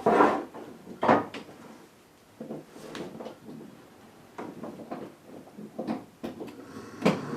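A string of knocks and clicks from handling the GE refrigerator as it is plugged back in. Near the end a sharp click, and the refrigerator starts running with a steady hum, its evaporator fan motor newly replaced.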